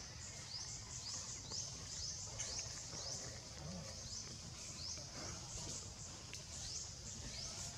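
Forest ambience: a high-pitched rising chirp repeating about twice a second over a low rumble.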